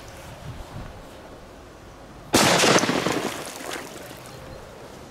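A big firecracker exploding underwater in a pond about two and a half seconds in: a sudden loud bang, then the rush of thrown-up water raining back onto the surface, fading over about a second.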